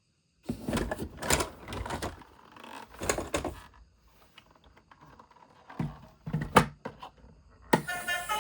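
Handling noises of toys and their packaging: bursts of rustling and clattering with a few sharp knocks, the loudest knock about two-thirds of the way through. Music starts shortly before the end.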